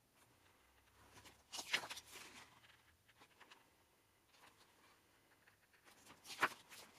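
Paper pages of an album photobook being turned by hand, giving two soft rustling swishes, one about a second and a half in and a sharper one near the end.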